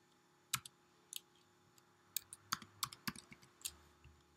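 Typing on a computer keyboard: about ten light, separate key taps, most of them in the second half, as numbers are keyed in.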